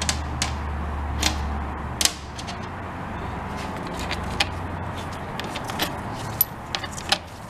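Scattered sharp metallic clicks and taps as a bolt is worked loose and lifted out of a Toyota AB60E aluminium transmission valve body by hand and tool, over a steady low hum.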